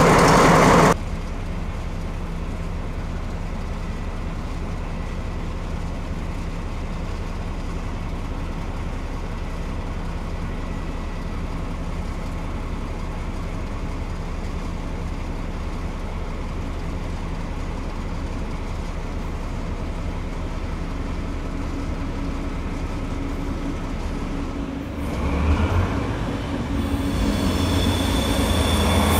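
Train at a station: a steady low hum from a standing rail vehicle. About 25 s in, a heavier engine rumble rises as a train gets moving, with high-pitched wheel squeal near the end.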